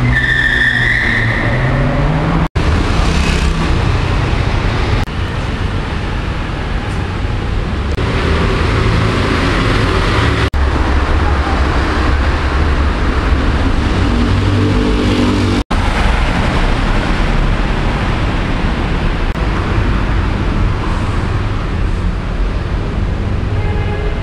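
Steady city road traffic noise, mostly a low rumble, that drops out briefly three times.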